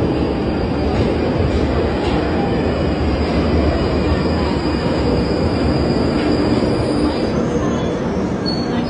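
London Underground tube train pulling into the station, a loud steady rush of wheels and running gear echoing in the tunnel. A thin, high wheel squeal sounds over it and stops about seven seconds in.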